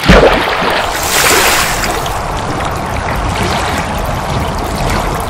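Logo-intro sound effect of water: a loud splash at the start, a hissing whoosh about a second in, then steady rushing, water-like noise.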